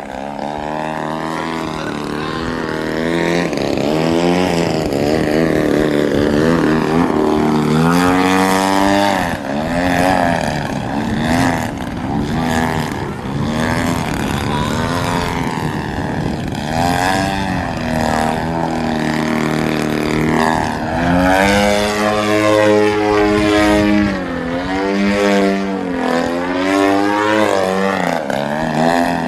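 The GP-123 engine of a Pilot-RC 103-inch Laser aerobatic RC plane running in flight, its propeller drone rising and falling in pitch again and again as the throttle and the plane's distance change through the manoeuvres.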